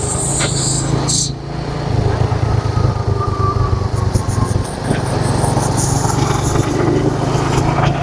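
Motorcycle engine running under way, a steady low drone that eases off briefly twice, about a second and a half in and again near the middle.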